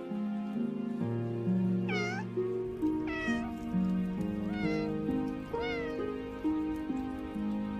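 A domestic cat meowing four times, each meow a short call that rises and falls in pitch, about a second apart, over gentle background music.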